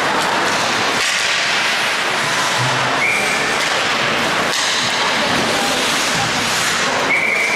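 Ice hockey play in a rink: skates scraping the ice and sticks working the puck over a steady, noisy din, with two short high tones, one about three seconds in and one near the end.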